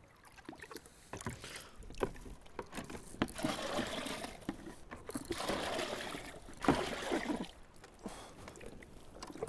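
Water sloshing and pouring from a small bucket in two spells of about a second each, near the middle, with a few sharp knocks in between.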